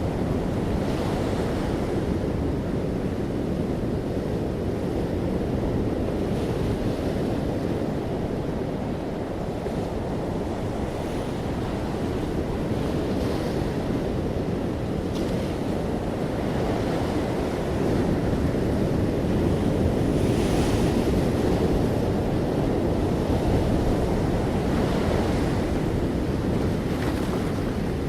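Ocean waves breaking and washing on a shore, a steady low surf with occasional brighter swells as individual waves break.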